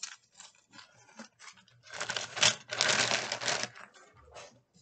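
Objects being handled and moved about. Scattered clicks and taps, then a dense rustling clatter from about two seconds in that lasts about a second and a half.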